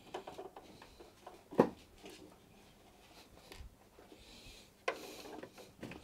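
Screwdriver work on the metal back of a NAS case as its cover screws are undone: small clicks and rubbing, a single sharp knock about a second and a half in, and a brief scrape near the end.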